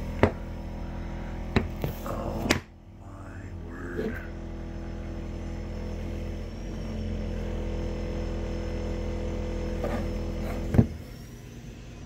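A steady low mechanical hum made of several even tones, broken by a few sharp knocks in the first few seconds. One loud knock comes near the end, after which the hum drops away.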